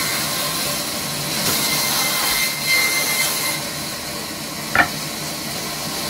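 Sawmill band saw running and ripping a plank lengthwise: a steady hissing whine with a thin high tone, brightest in the middle seconds. A single sharp knock sounds near the end.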